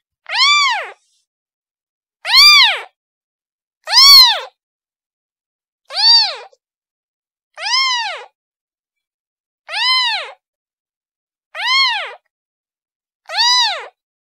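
A kitten meowing repeatedly, calling for its mother. There are eight high meows, each rising and then falling in pitch, about every two seconds with silence between.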